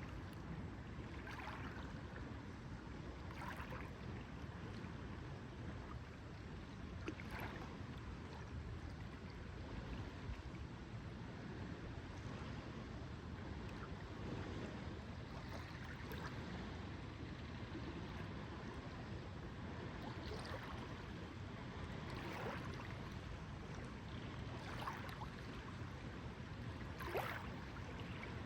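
Lake water lapping gently, with small splashes every few seconds over a steady low rush.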